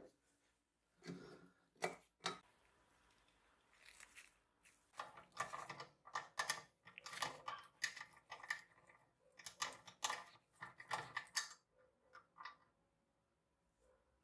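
Antique can sealer being taken apart by hand: a few sharp knocks, then a long run of metal clicks and rattles as its steel seaming rollers are worked loose on their shaft.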